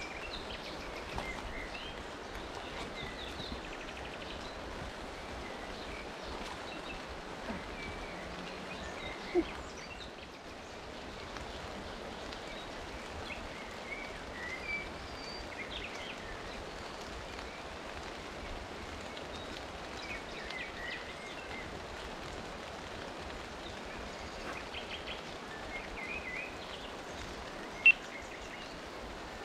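Steady hiss of rain falling on the river, with birds chirping now and then. A sharp tap stands out about nine seconds in and another near the end.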